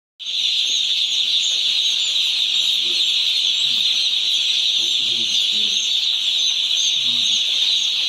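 Continuous massed peeping of hundreds of day-old chicks: a steady, high-pitched chorus of countless overlapping cheeps.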